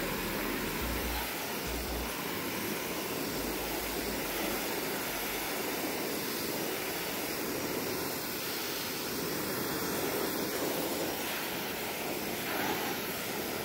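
Kärcher pressure washer spraying a jet of water onto a plastic mower grass catcher: a steady, unbroken hiss of spray.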